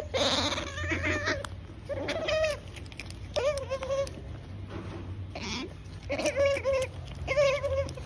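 An otter making a string of short, squeaky calls with a wavering pitch, about one a second, the 'nomnom' noise; a short breathy snuffle comes at the start.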